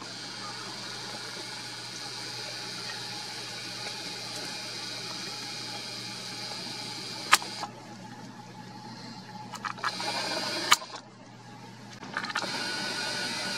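Steady whirring hiss from a Nikon P1000 camera's zoom lens motor, picked up by its own microphone, broken by two sharp clicks about seven and eleven seconds in, with quieter stretches after each.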